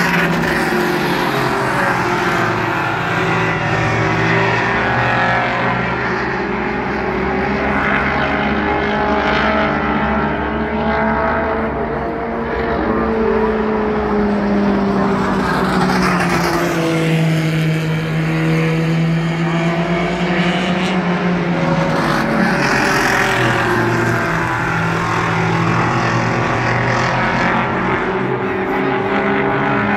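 Mini Stock race cars' four-cylinder engines running hard at speed around the oval, several cars at once, the engine pitch rising and falling as they go through the turns and down the straights.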